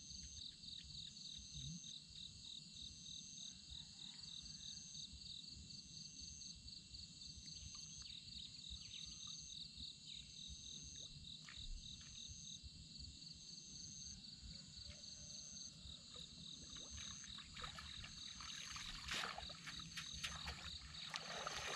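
Insects chirping steadily at dusk, one with a fast pulsing trill and another repeating a short call about once a second. Toward the end, splashing and sloshing of water grows louder as someone moves through the shallows.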